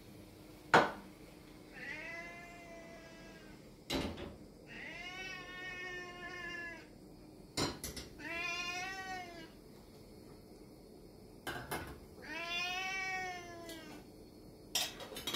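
A house cat meowing four times, long drawn-out meows that each rise and then fall in pitch, which the owner takes for begging for food. Sharp clicks or knocks come between the meows, the loudest just under a second in.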